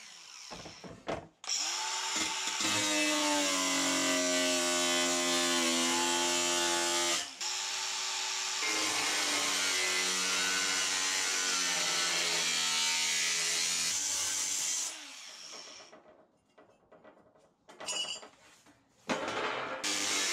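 Angle grinder cutting fan openings in a sheet-metal bus panel. It spins up about a second and a half in and runs steadily, with a brief dip about seven seconds in. It is switched off and winds down around fifteen seconds, then starts again near the end.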